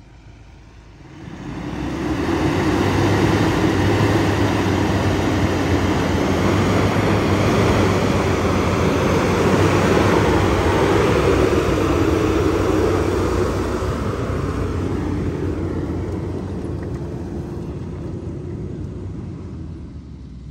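Ford Ranger Raptor pickup driving along a sandy bush track: steady engine and driving noise, swelling up about a second in and easing a little near the end.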